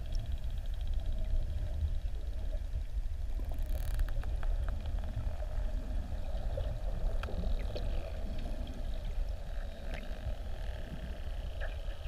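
Underwater sound with a steady low rumble of the sea. About four seconds in comes a rapid click train, then scattered sharp single clicks, typical of bottlenose dolphins echolocating close by.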